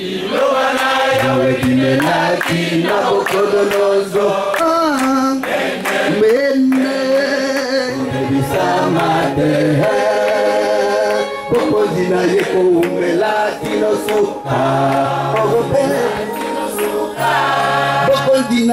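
Choir singing a worship song, several voices together holding long, sustained notes.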